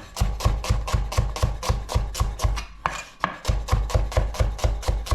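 Kitchen knife slicing onions on a cutting board in quick, even strokes, about five a second, with a short pause about three seconds in.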